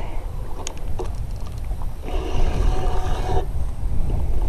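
Shakespeare Ugly Stik spinning reel whirring for about a second midway while a hooked fish is being played, over heavy wind buffeting the microphone, with a few small handling clicks early on.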